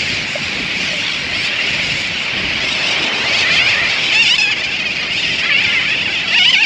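A dense seabird colony calling all at once: a constant high-pitched chorus of many overlapping calls from terns and other seabirds. It grows fuller after a few seconds, with a few louder single calls standing out.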